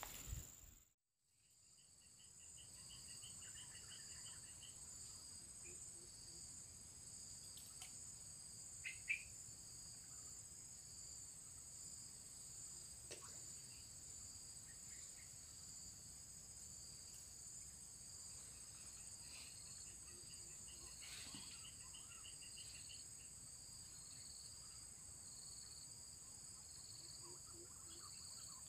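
Faint, steady high-pitched chorus of insects, several drones layered on top of each other, with a few short chirping trills and a couple of soft clicks.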